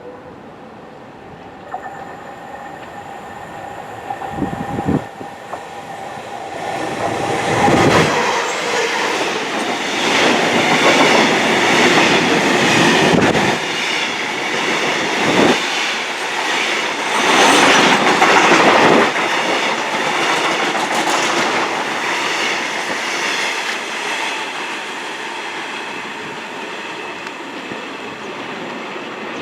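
A train passing on the line, its wheels clattering over the rail joints. It builds up, is loudest for roughly ten seconds in the middle, then eases off.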